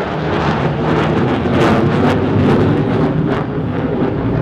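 Loud jet noise from an F-35B's single Pratt & Whitney F135 engine at high power as the jet passes and pulls away into a turn, with a crackle through the middle of the pass.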